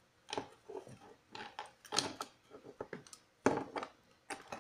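Irregular plastic clicks, knocks and rattles from a stud finder's opened plastic housing and circuit boards being handled and pulled apart. The loudest knock comes about three and a half seconds in.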